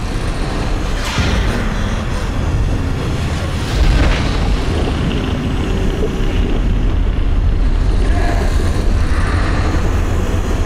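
Film sound design for a time-paradox blast: a loud, deep rumble that keeps running, with whooshing swells about a second and about four seconds in.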